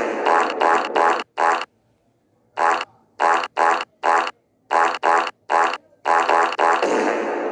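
Cartoon fart sound effects: a quick series of short farts, a pause of about a second, another run of short farts, then a longer drawn-out fart from about six seconds in.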